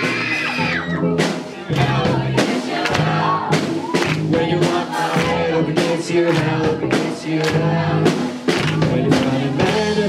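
Live rock band playing: a drum kit keeps a steady beat under electric guitars and bass.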